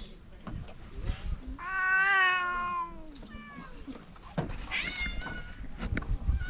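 A cat meowing three times: one long meow lasting about a second, a fainter short one, then one that falls in pitch.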